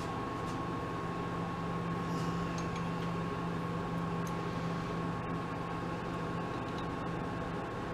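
Mini lathe running steadily: an even motor hum with a thin high tone above it and a few faint ticks.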